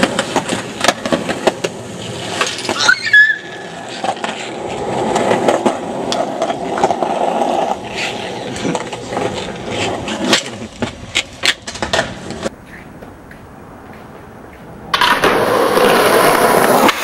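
Skateboard wheels rolling on concrete, with repeated clacks and knocks of the board hitting the ground and a brief high squeal about three seconds in. Near the end, after a short quieter stretch, a louder, even rushing noise cuts in suddenly.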